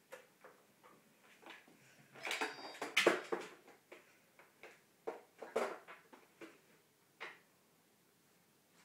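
Irregular knocks, scuffs and clatter as a kitten wrestles a plush toy across a wooden table, loudest in a burst about two to three seconds in, then scattered single knocks, ending in quiet near the end.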